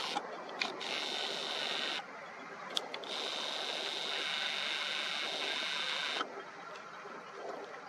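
Nikon Coolpix P1000's zoom motor whirring as the lens zooms in. It runs in two stretches with sharp starts and stops, the second ending about six seconds in, with a few small clicks from the camera body between them.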